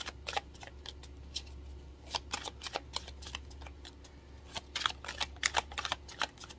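A deck of tarot cards shuffled by hand, overhand: a fast, irregular run of crisp card clicks and flicks in flurries, busiest about two seconds in and again around five seconds in.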